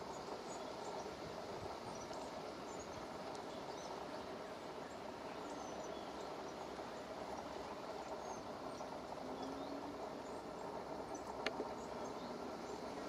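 Outdoor ambience: a steady background rush with faint, scattered chirps of distant small birds, and a single sharp click about eleven seconds in.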